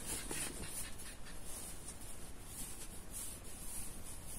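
Soft, irregular rustling and swishing of cloth being handled and folded on a cutting table.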